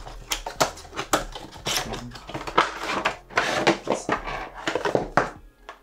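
Cardboard product box being opened by hand and its inner box slid out of the sleeve: an irregular run of sharp clicks, taps and scraping rustles of cardboard packaging.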